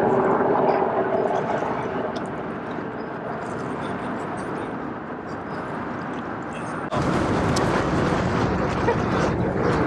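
Harbour ferry under way: a low, steady engine drone fading out within the first couple of seconds, over a constant rush of noise. About seven seconds in, the sound cuts abruptly to louder open-air ambience.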